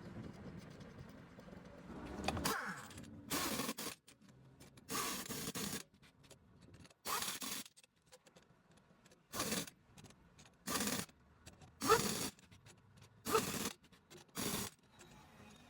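A series of about nine short scraping strokes, each under a second, with brief pauses between them.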